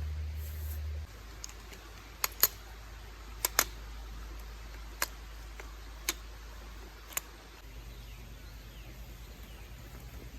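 A handful of short, sharp clicks and knocks at irregular intervals, some in quick pairs, after a low hum stops about a second in.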